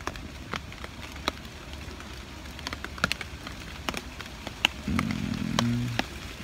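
Rain falling on a tarpaulin overhead: scattered, irregular sharp drops tapping the fabric over a soft hiss. About five seconds in, a person gives a short low hum.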